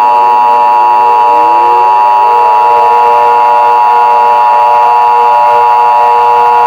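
Emergency Alert System attention signal: a loud, steady two-tone alert tone, with a siren winding up in pitch beneath it about a second in.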